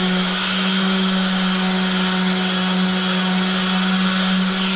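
Makita random orbit sander running at a steady speed with its pad on plywood, a constant motor hum. Right at the end it is switched off and its pitch starts to fall as the motor spins down.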